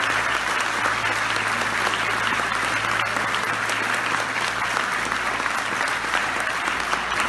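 Audience applauding steadily, with a faint low hum underneath.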